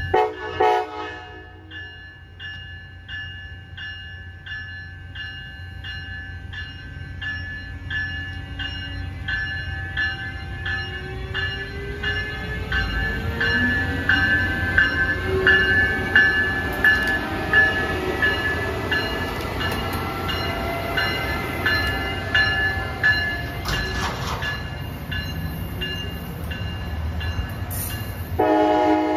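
Amtrak train with a Siemens ACS-64 electric locomotive rolling past with a steady wheel rumble, while a warning bell rings steadily, about twice a second. As the locomotive goes by, its motors whine, rising and falling in pitch, and a train horn sounds near the end.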